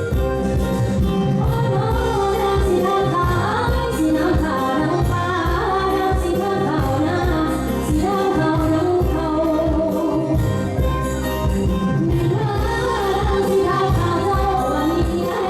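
Thai ramwong folk-dance music: a singer with a band over a steady beat.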